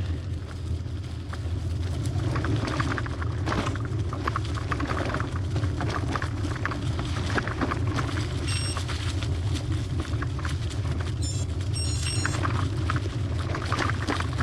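Trek hybrid bicycle riding over a bumpy dirt trail: a steady low rumble of wind and vibration on the microphone, with frequent rattles and knocks from the bike over the bumps.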